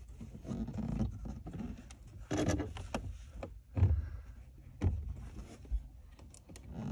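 Hard plastic knocks and scrapes from a Starlink Mini dish and its mount being handled and fitted into place. There are about four sharp knocks spread over a few seconds, the loudest about four seconds in.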